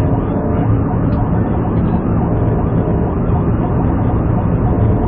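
Police patrol car driving fast in a pursuit: steady, loud engine and road noise inside the cabin, with a siren wailing.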